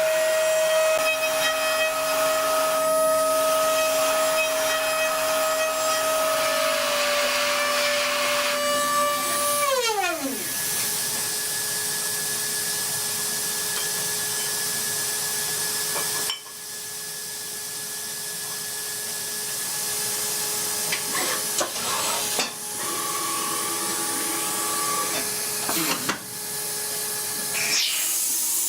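CNC metal lathe running: a steady whine with a hiss over it. About ten seconds in, the whine drops steeply in pitch as the machine slows, then a lower steady whine and hiss carry on, with a few short knocks near the end.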